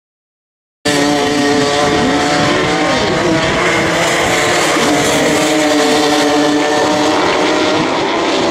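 Several two-stroke racing karts running at race pace, their overlapping engine notes rising and falling as they accelerate and slow through the corners. The sound cuts in about a second in, after a moment of silence.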